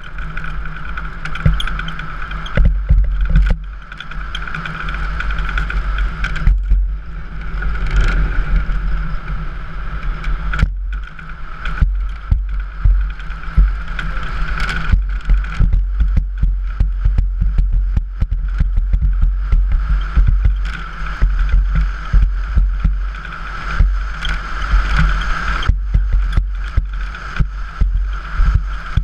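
Onboard sound of an unpowered speeddown soapbox racer rolling fast downhill on asphalt: heavy road rumble with frequent knocks and rattles over bumps, and a steady high whine.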